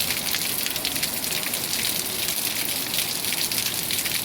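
Steady rain falling, with many small drop impacts ticking through an even hiss.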